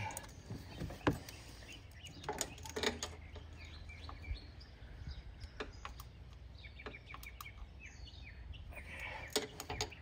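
Scattered light clicks and taps of a hand wrench working the engine bolts of an ATV, with birds chirping faintly in the background.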